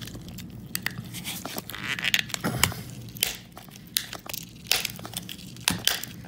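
Flathead screwdriver prying and scraping at the plastic housing and tightly packed circuit board of a shock-collar receiver, with irregular small cracks and clicks as the parts are levered loose.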